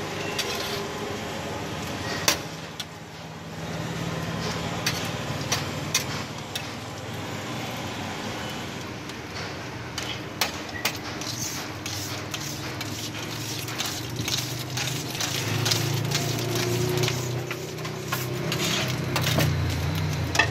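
A metal spatula clicking and scraping on a flat iron griddle, with repeated sharp taps, over the sizzle of frying burger patties and buns. A steady low hum runs underneath.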